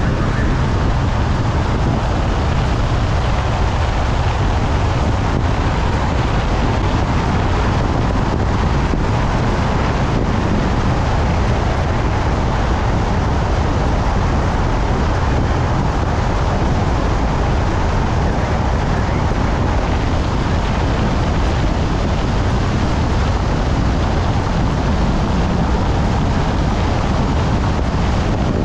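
Steady road and wind noise from a vehicle driving along the highway, a constant low rumble with wind buffeting the microphone and no distinct events.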